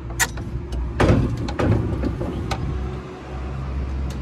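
Knocks and clicks from the metal parts of an LED TV being handled during disassembly, the loudest knock about a second in, over a steady low rumble.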